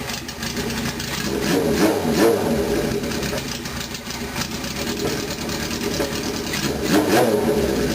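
Honda CB750's air-cooled SOHC inline-four running through a Yoshimura header, idling with a few short throttle blips that rev up and fall straight back.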